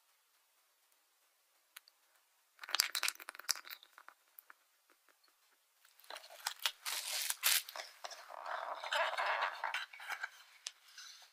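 Plastic cling film crinkling and rustling as it is handled and wrapped around a square metal mousse ring, in two spells: a short one about two and a half seconds in and a longer, denser one from about six seconds on.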